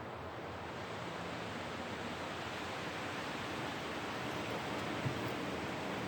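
Gasoline being poured into a portable generator's fuel tank: a steady pouring hiss that grows slightly louder and brighter as it goes on.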